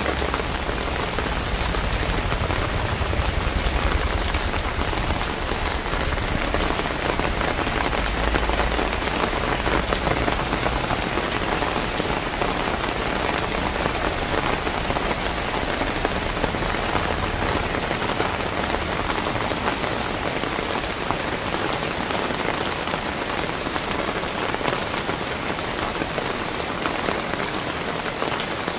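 Steady rain falling on wet pavement and puddles, an even hiss of drops. A low rumble sits underneath for the first half and fades away.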